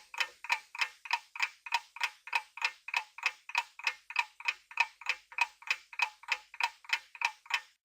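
Clock ticking sound effect, about four even ticks a second, counting down the answer time in a quiz.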